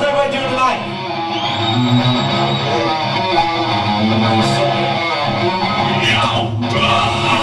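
Band music played live, an instrumental passage with guitar and no singing.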